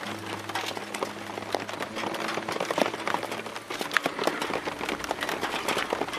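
Heavy rain, dense drops pattering and clicking on a hard surface close to the microphone. A low steady hum runs beneath it and stops a little before four seconds in.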